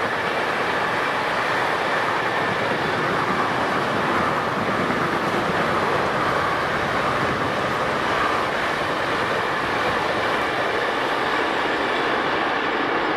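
Long intermodal freight train passing at speed: steady rolling noise of its wagons' wheels on the rails.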